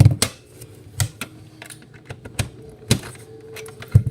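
BG-12 fire alarm pull station being handled: a handful of sharp clicks and knocks, about one a second, as its parts are moved.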